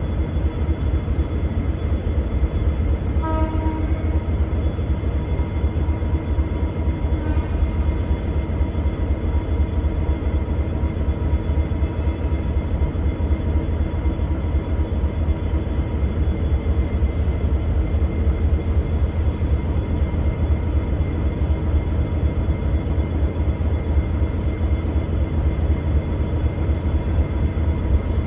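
V/Line VLocity diesel railcar set running with a steady low engine rumble as it pulls away. Its horn sounds one short low note about three seconds in and a fainter, shorter toot about four seconds later.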